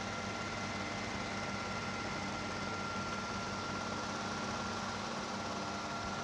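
Super 8 film projector running with its cover off: the electric motor and drive mechanism make a steady hum, with a thin steady whine above it.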